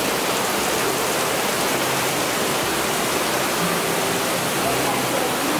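Waterfall water falling and rushing, a steady, even noise with no breaks.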